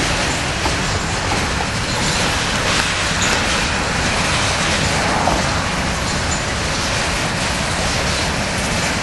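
Empty covered hopper cars of a freight train rolling past, their steel wheels running on the rails with a steady rumble and rattle.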